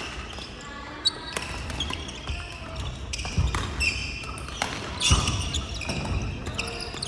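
Badminton play on several courts: sharp racket hits on shuttlecocks, sneakers squeaking on the wooden floor and heavy footfalls from lunging players, echoing in a large hall.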